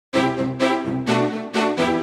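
Intro music: a pitched melody of sharply started notes, about two a second, beginning just after the start.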